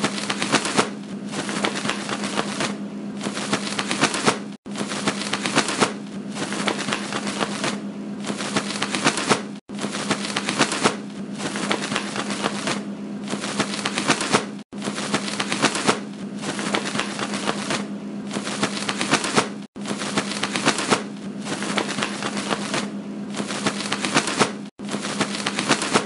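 Rapid, dense crackling clicks over a steady low hum. The sound is a loop that cuts out briefly and restarts about every five seconds.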